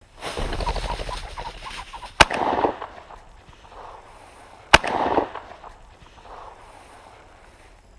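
A pheasant flushing, with rapid fluttering wingbeats and cackling, then two shotgun shots about two and a half seconds apart, each followed by a short echo.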